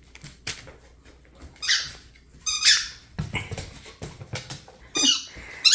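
A dog's squeaky toy squeaks about four times in short, high, wavering squeals, with a run of light clicks and knocks in the middle.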